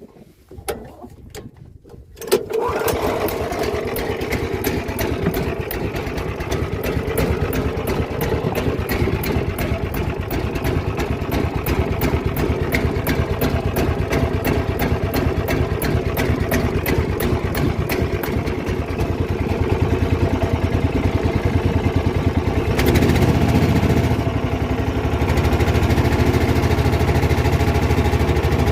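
Small boat engine starting about two seconds in and then running steadily with a regular ticking, getting a little louder after about twenty seconds as the boat gets under way.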